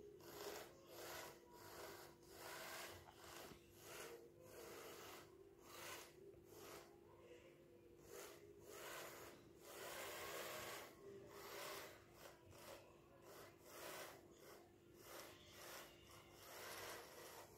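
Small DC gear motors and front sweeping brush of a homemade robotic sweeping truck running across a stone floor: faint, irregular scraping and rubbing, one or two a second, over a steady low hum.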